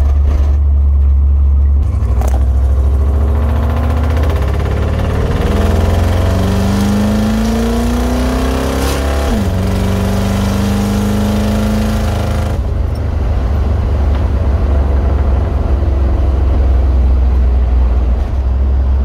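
A car engine accelerating: its pitch rises steadily, drops sharply about nine seconds in as if at a gear change, then holds steady before cutting off abruptly a few seconds later. A steady low rumble runs underneath.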